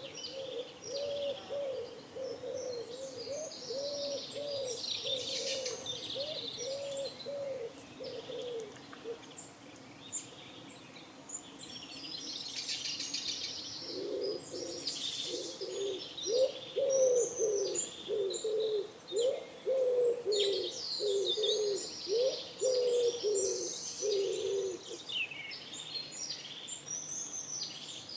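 Pigeons cooing in two long runs of rapidly repeated low notes, one at the start and one from about halfway through, with small songbirds chirping throughout.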